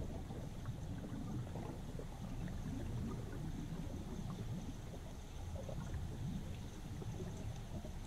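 Flowing river water heard underwater through a GoPro's waterproof housing: a steady low rumble with faint scattered ticks.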